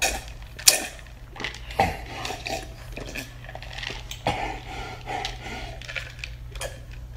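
A person gulping and slurping greedily from a cup: a run of irregular wet clicks, swallows and sucking noises, with sharper smacks about a second in, near two seconds and past four seconds.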